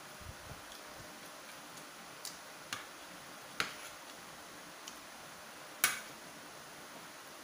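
Metal fork clinking and tapping against a ceramic plate: a handful of short, sharp clicks, irregularly spaced, the loudest near the end with a brief ring.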